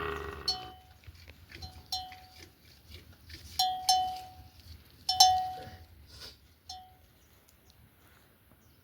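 A cow's moo tails off at the start, then a bell hung on a cow clanks irregularly about seven times. Each clank gives a short ringing tone, and the loudest come about four and five seconds in.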